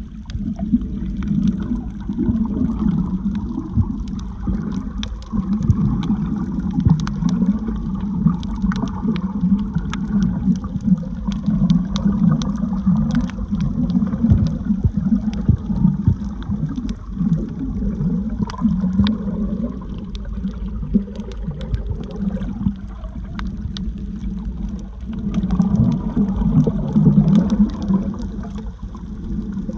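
Water heard through a camera held underwater while snorkeling: a muffled, swelling sloshing and gurgling, with scattered faint clicks.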